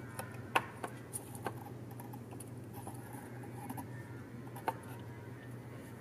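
A few light clicks and taps as a cardboard doll cutout is handled and lifted out of a folded-paper toy room: the sharpest click comes about half a second in, a few more follow over the next second, and one more comes near the end, over a steady low hum.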